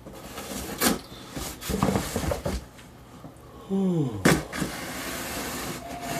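Handling sounds: a few separate knocks and rubbing noises, with a short falling creak or groan a little before the second knock.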